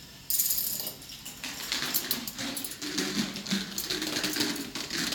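Plastic balls of a K'nex ball machine clattering and clicking along its tracks and tumbling together, a dense rattle that starts suddenly a moment in.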